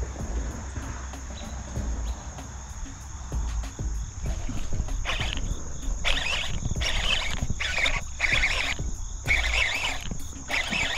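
A steady high insect buzz with wind rumbling on the microphone. About halfway through, a series of short rasping bursts starts, roughly one or two a second.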